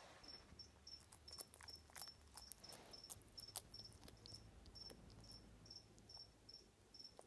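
Faint cricket chirping: a short high chirp repeated evenly about three times a second, with a few faint clicks in the middle.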